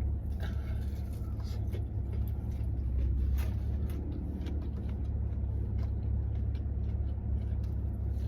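Steady low engine rumble of an idling car heard from inside the cabin, with scattered light clicks and rustles of food and packaging being handled.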